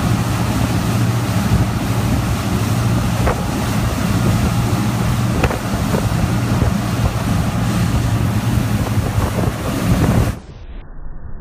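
High-speed military patrol boats running flat out at close range: a steady low engine drone under rushing water and heavy wind noise on the microphone. About ten seconds in, the sound drops suddenly to a much quieter, muffled one.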